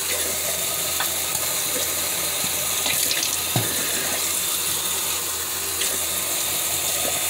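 Tap water running steadily into a bathroom sink, with a few light knocks against the basin.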